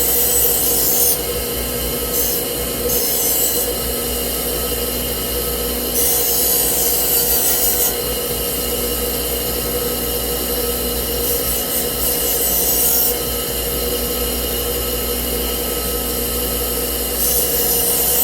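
A motor-driven wheel spinning steadily, with a steel lawnmower blade pressed against it in about five scraping bursts as the blade is cleaned off.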